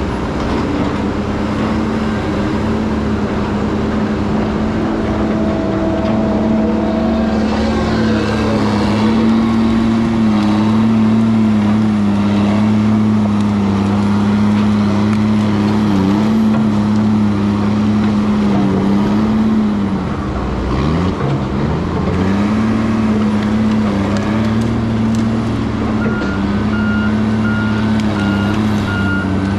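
Heavy diesel logging machine engine running hard at steady revs, briefly dropping in pitch about twenty seconds in and then climbing back. Near the end a backup alarm starts beeping at an even pace.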